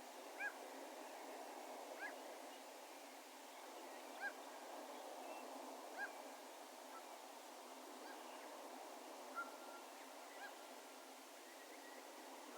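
A distant bird gives a short, pitched call, repeated about every two seconds and echoing across an open field, over a faint steady background hiss.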